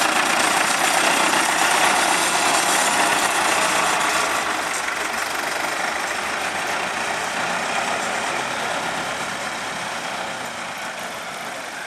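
Vintage IFA Pionier tractor's diesel engine running as it tows a small caravan past, getting steadily quieter from about four seconds in as it moves away.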